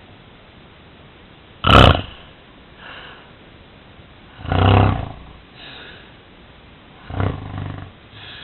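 A sleeping person snoring: three loud snores about two and a half seconds apart, the first starting with a sudden snort, with fainter breaths between them.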